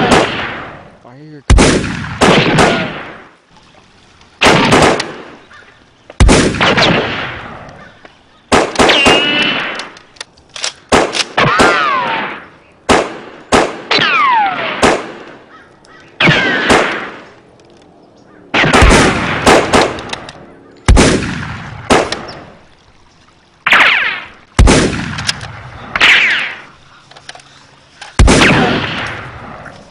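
A volley of gunshot sound effects, about twenty shots at irregular spacing, each followed by a ringing tail; several end in a falling whine like a ricochet.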